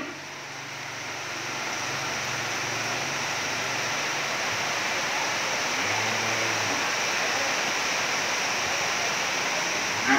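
A steady, even rushing noise, with a faint low cattle moo near the start and again about six seconds in.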